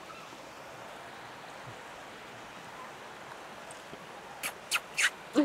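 Steady rush of river water. Near the end come three short, sharp sucking sounds from a mouth working on a piece of crayfish, then a brief hum.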